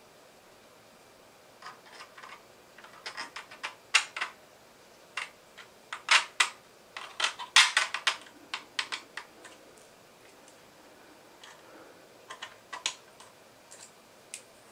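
Hard 3D-printed plastic parts clicking and knocking together as small pieces are handled and fitted onto a Nerf crossbow body. The clicks come in irregular clusters, thickest in the middle and thinning out near the end.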